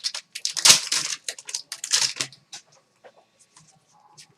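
Crinkling and rustling of trading-card packaging and cards being handled, dense for the first two seconds, then a few light clicks and taps.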